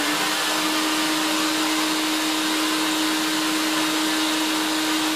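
Shop vac motor (a carpet-cleaning machine) running steadily, with a constant whine over loud rushing air as its exhaust blows out through PVC pipes.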